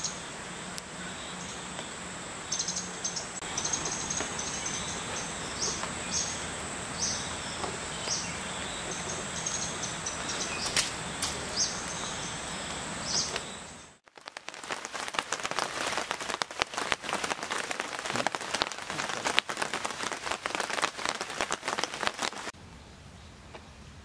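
Forest ambience with a steady high-pitched drone and many short, high bird chirps. About halfway through it breaks off abruptly into a dense, irregular patter of raindrops on leaves. Near the end this gives way to a quieter low hum.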